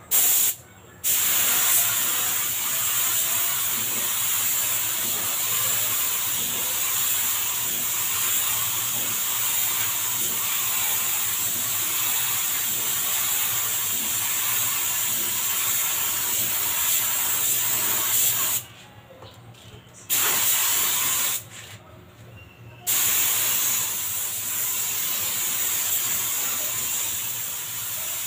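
Compressed-air gravity-feed paint spray gun spraying a car body panel: a loud, steady hiss of air and atomised paint. It stops briefly about half a second in and twice more for a second or so near the two-thirds mark, as the trigger is released between passes.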